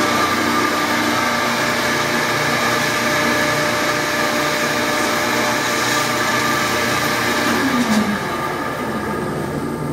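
A 42-ton hydraulic press's pump motor runs steadily while the ram is lowered with the control valve lever. About eight seconds in, a tone slides down in pitch and the sound eases a little.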